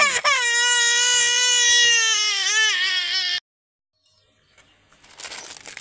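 A young child crying in one long, loud wail of about three seconds that cuts off abruptly.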